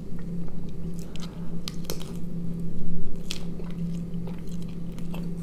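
A person biting into and chewing a soft tortilla-wrapped snack, close to the microphone: wet, squishy chewing broken by sharp clicks, loudest about three seconds in, over a steady low hum.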